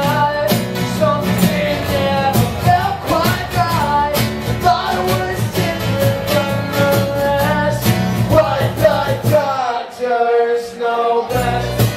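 Live acoustic band: a lead singer over strummed acoustic guitars, with a cajon keeping a steady beat. Near the end the bass and beat drop out for about a second and a half, leaving voice and guitar, then come back in.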